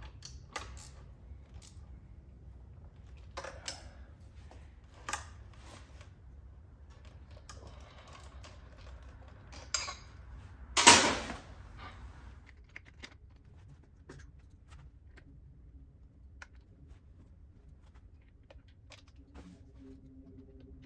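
Small metal parts and hand tools clicking and clinking as the original mounting bolts are fitted to the gauge cluster, with one loud clatter about eleven seconds in.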